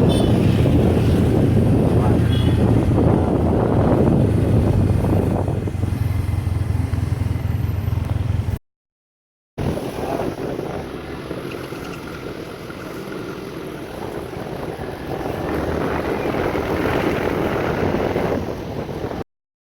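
A motor running steadily, with wind buffeting the microphone. A strong low rumble holds for about eight seconds and breaks off into a second of silence. The rumble then returns quieter and noisier.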